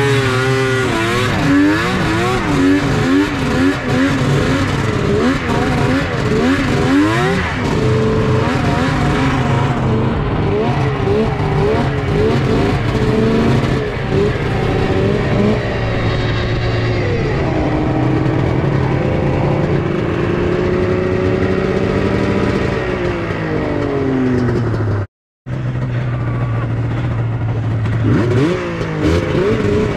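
Snowmobile two-stroke engine running under way on a trail ride. Its pitch swings quickly up and down with the throttle for the first several seconds, then holds steadier with slow falls in pitch. The sound cuts out for a split second about three-quarters of the way through, and the engine revs up again near the end.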